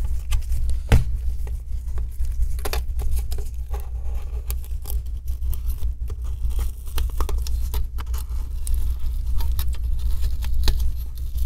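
Scattered light clicks and taps as a thin aluminium laptop screen bezel is pried and worked loose from the display lid, over a steady low hum.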